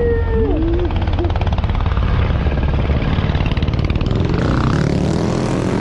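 Motorcycle engines running, with one bike passing close and its engine note rising about four seconds in.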